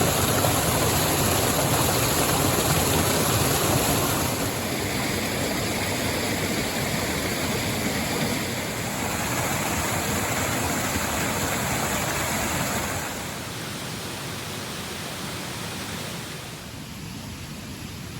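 Steady rushing noise like running water, stepping down in level about 4 seconds in and again about 13 seconds in.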